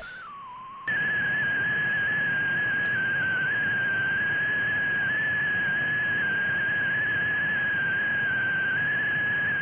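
Satellite beacon carrier received through a DRO LNB and demodulated in upper sideband on an SDR, heard as a whistling tone over receiver hiss. In the first second the tone slides down; then the hiss gets louder and the tone jumps higher, where it holds with a slight waver. The beacon should be a constant tone: the pitch wander is drift from the unstable DRO LNB.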